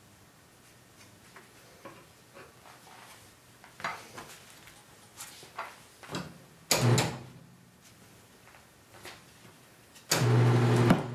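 Tire and rim knocking and clicking against the tire changer as the tire is handled. Then the tire changer's turntable motor runs with a steady hum, briefly about two-thirds of the way in and again from near the end, starting with a loud burst.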